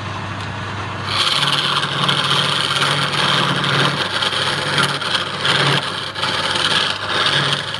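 Woodturning lathe running with a steady motor hum. About a second in, a tool meets the spinning wood and a loud scraping hiss starts, easing off briefly a few times as the tool is lifted and set back.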